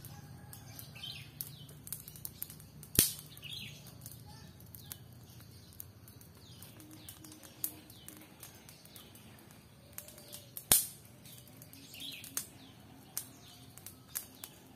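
Wood fire crackling, with frequent small snaps and two loud sharp pops about 3 and 11 seconds in, while small birds chirp repeatedly.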